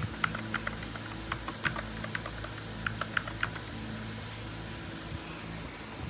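Keys on a magnetic-switch gaming keyboard being pressed, making sharp separate clicks in two short irregular runs: one over the first two seconds and one around three seconds in. A faint steady low hum runs underneath.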